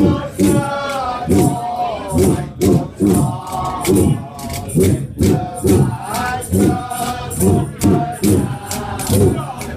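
Ximbombas, Mallorcan friction drums, rubbed in a steady pulsing beat about one and a half times a second, with jingling percussion and voices singing a folk song over them.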